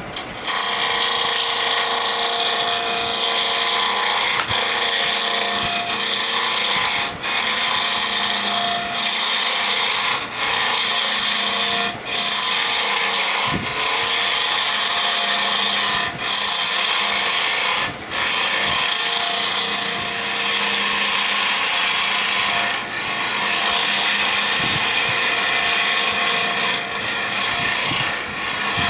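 Homemade carbide-insert turning tool cutting a block of wood spinning on a wood lathe, rounding it: a loud, steady scraping hiss of wood being cut, broken by short gaps every few seconds as the tool comes off the wood, over the faint steady hum of the lathe.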